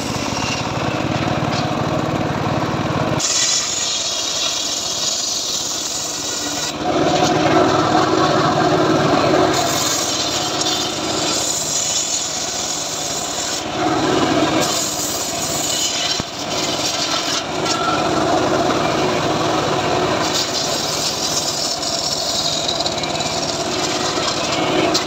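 Homemade bench circular saw ripping trembesi (rain tree) wood into planks, the large blade cutting steadily. The cut grows louder in several stretches as boards are fed through.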